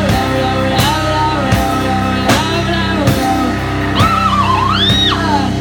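Live rock played on amplified cello and drum kit: held cello notes over a steady drum beat, with a high note sliding up and down about four seconds in.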